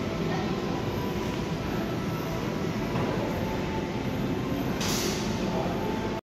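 Steady low rumbling background noise of a large indoor mall hall, with a brief hiss about five seconds in.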